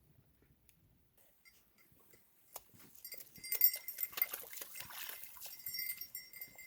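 Light metallic clinking and small clicks, starting about two and a half seconds in and going on to the end.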